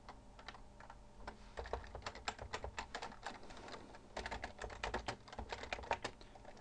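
Keystrokes on a computer keyboard, typing a terminal command: two runs of quick clicks, the first starting about a second and a half in and the second about four seconds in, with a short pause between them.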